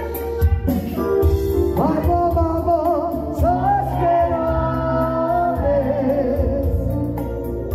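A male singer sings into a handheld microphone over live band accompaniment with a steady bass line and beat. He holds long, wavering notes in the middle of the phrase.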